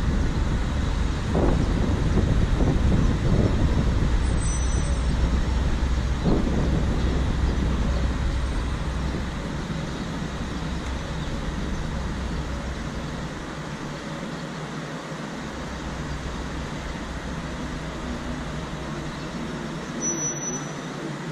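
Road traffic at a busy city intersection: a steady low rumble of engines and tyres from the surrounding cars, with a few brief swells in the first several seconds, then the rumble easing and quieter from about nine seconds in.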